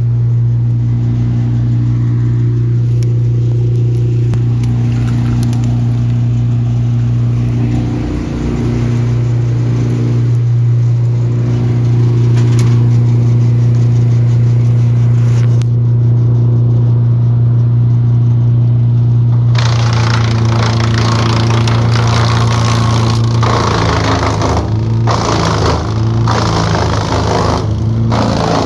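Timberwolf TW160PH wood chipper running steadily with a low engine hum. From about 20 seconds in, a loud rough grinding noise joins on and off as brushwood is drawn through the feed rollers and chipped.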